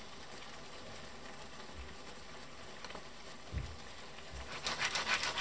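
Clams cooking in tomato sauce in a frying pan: a soft steady sizzle and simmer, with a low knock about three and a half seconds in and a spell of louder crackling sizzle near the end.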